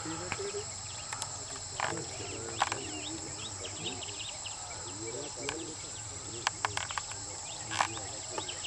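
Steady high-pitched drone of insects, with a faint murmur of voices underneath and several sharp clicks or snaps scattered through.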